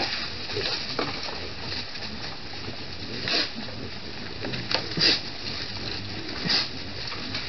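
Herd of white-lipped peccaries foraging in leaf litter: several short noises a second or two apart over a steady hiss.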